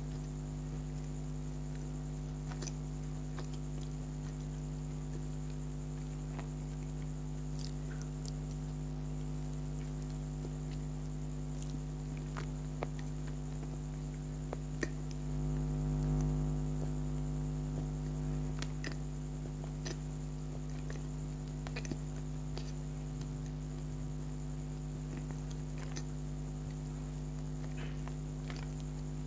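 Soft chewing and wet mouth clicks from eating donuts, scattered and sparse, over a steady electrical hum that swells for a few seconds about halfway through.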